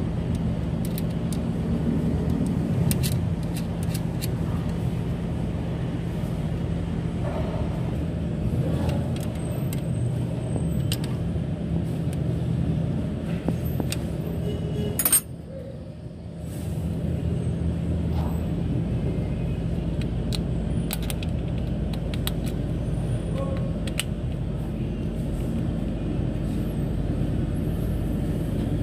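Scattered short metallic clicks and taps of hand tools working the alternator's mounting bolts, over a steady low mechanical hum. The sound drops out briefly about halfway through.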